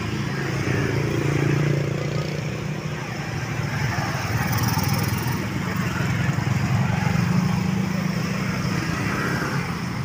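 Several small motor scooters riding past close by at low speed, their engines humming and shifting a little in pitch as they go.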